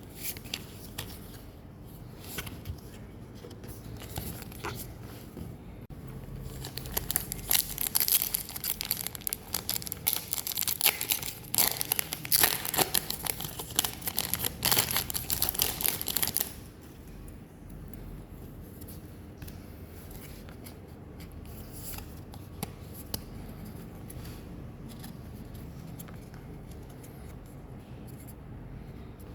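Foil wrapper of a Pokémon trading-card booster pack being torn open and crinkled: a dense, loud crackling for about ten seconds, starting some six seconds in, with quieter rustling of handling before and after.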